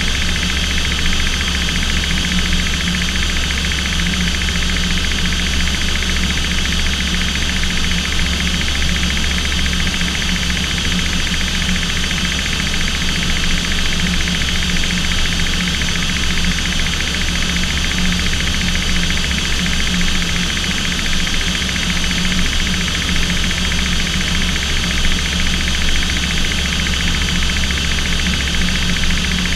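Aircraft engine noise heard inside the cockpit in flight: a loud, steady drone with a low rumble and several steady whining tones, unchanging throughout.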